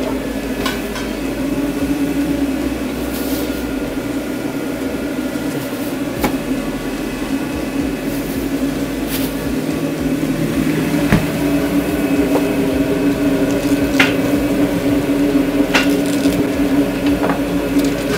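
Steady hum of a microwave oven running while it defrosts frozen corn kernels, with a few light clicks and knocks of kitchen utensils scattered through it.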